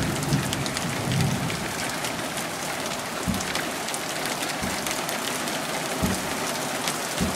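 Steady rain falling, with many close raindrops ticking near the microphone. Three brief dull knocks come partway through and near the end.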